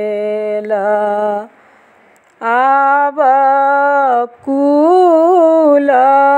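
A woman singing a Maithili upanayan (sacred-thread ceremony) folk song unaccompanied, in long drawn-out notes. She breaks off about a second and a half in and again just after four seconds.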